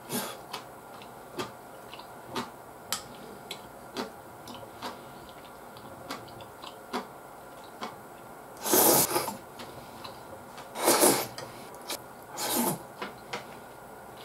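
A metal spoon clicking and scraping against a ceramic bowl of curry rice in scattered light ticks, with three louder mouth sounds of eating off the spoon about nine, eleven and twelve and a half seconds in.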